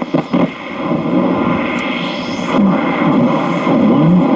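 1940 Philco Model 40-155 tube radio's loudspeaker giving noisy, hissing AM reception with a weak station's voice faint beneath the static. A few short clicks sound in the first half-second.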